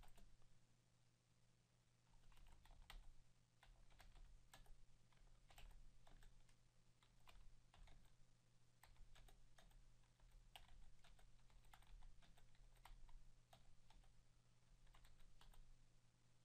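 Faint computer keyboard typing: irregular keystrokes in short runs with brief pauses between them.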